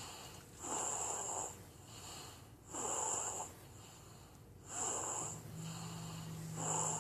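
Snoring in a car: four loud snoring breaths, evenly spaced about two seconds apart, each with a hissy, wheezy edge.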